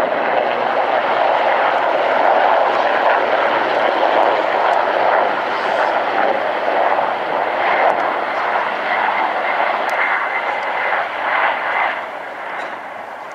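Puma military helicopter making a low pass, with a steady, loud noise of turbines and rotor. The noise drops away about twelve seconds in as the helicopter moves off.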